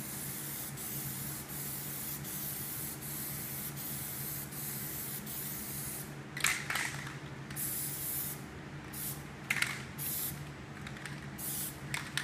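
Aerosol can of Plasti Dip spraying a second coat over a vinyl stencil: a steady hiss for about six seconds, then a series of short sprays toward the end.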